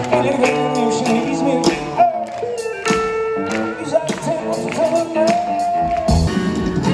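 Live band playing: a singer over electric guitar, keyboard and drums, as heard from the crowd.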